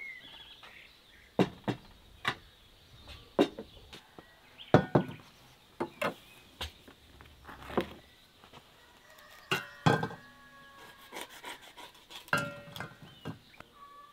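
Irregular knocks and clinks of dishes and utensils being handled on a wooden table, a dozen or so separate hits, some ringing briefly.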